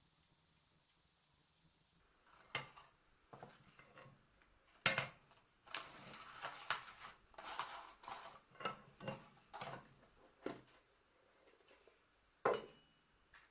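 Small hard objects handled and set down on a workbench: scattered clicks and knocks, a busier run of clattering in the middle, and one sharp knock near the end.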